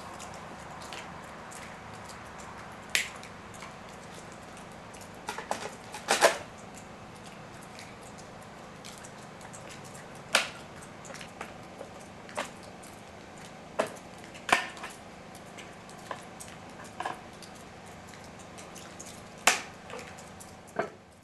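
Irregular plastic clicks and knocks, a dozen or so, as the air filter and top cover are fitted back onto a STIHL chainsaw and the cover fastener is turned with a screwdriver, over a steady background noise.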